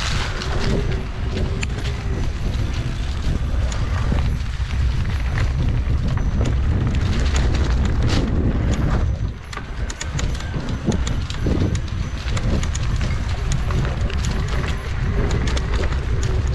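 Wind rushing over the microphone of a camera mounted on a mountain bike riding a rough dirt trail, with continual rattles and knocks from the bike and tyres; the sound dips briefly about halfway through.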